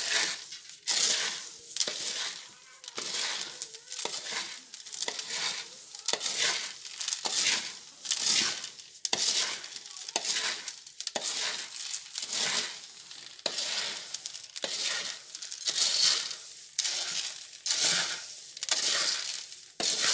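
Freshly roasted, still-hot coffee beans being stirred by hand in a perforated metal basin. The beans rattle and rustle in repeated strokes, about one a second.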